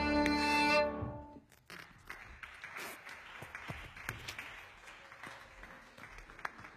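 Violin music ends on a held note that stops about a second in and dies away, followed by faint scattered applause.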